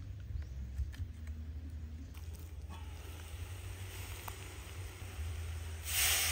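A cleaver tapping at a green coconut, then coconut water poured from the opened coconut splashing into a metal cooking pot near the end, the loudest sound. A steady low rumble lies underneath throughout.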